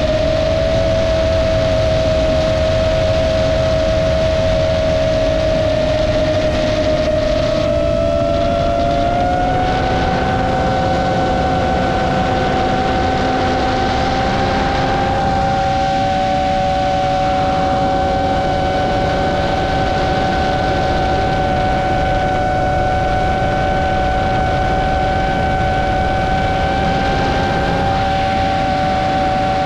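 Diatone Roma F4 LR FPV quadcopter's brushless motors and propellers whining steadily in flight, heard from on board, over a steady rush of air noise. Two close tones make up the whine; about nine seconds in they spread apart in pitch, one rising and one falling, and then hold.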